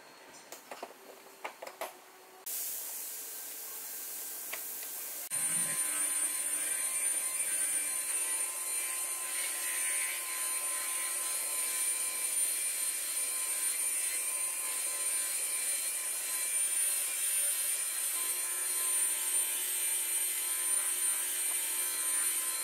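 A few light knocks and clicks of a plastic bumper cover being fitted, a few seconds of hiss, then a rotary polisher with a buffing pad running steadily with a high whine as it buffs polishing compound on a car's door panel.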